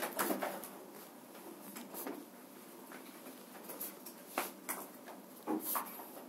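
Chalk on a blackboard: short scratching strokes as lines are drawn and shaded, in bursts with pauses between, a cluster at the start and a few more near the end.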